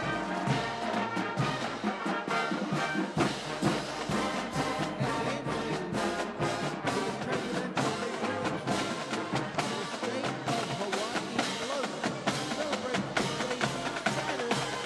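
Marching band playing a march: massed brass, sousaphones among them, over a steady marching drum beat.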